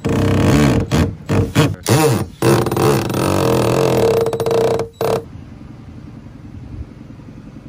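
DeWalt cordless drill driving screws into a plastic flush-mount rod holder on a kayak hull. The motor whirs in several short pulses that speed up and slow down, then runs steadily for a couple of seconds and stops suddenly about five seconds in.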